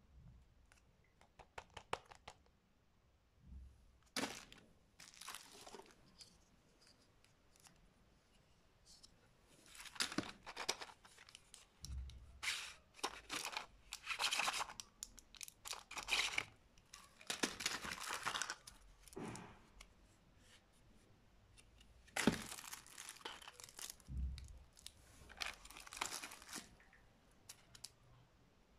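Plastic and foil candy packaging handled in the hands, giving a series of short, irregular rustles, most of them in the second half.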